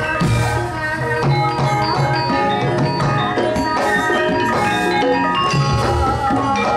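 Javanese gamelan playing: bronze metallophones ring out a steady stream of struck notes over drum beats.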